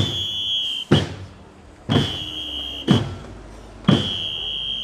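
A marching drum beaten about once a second, five beats, with a shrill whistle blast held for most of a second on every other beat.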